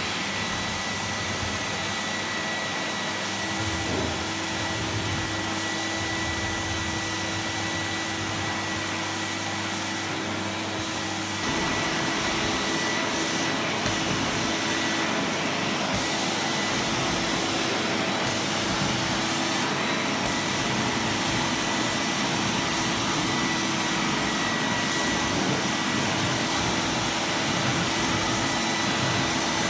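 A 2001 Zelmer Wodnik 5 Profi System (619.5.B51E) washing vacuum cleaner runs steadily with a high whine while its carpet-washing nozzle is drawn over a rug. It steps up a little in loudness about eleven seconds in.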